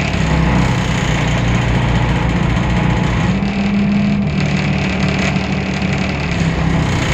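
The DAF PR 228 six-cylinder diesel engine of a Temsa Avenue LF city bus running steadily under way, with a low engine note that rises briefly around the middle and then settles again.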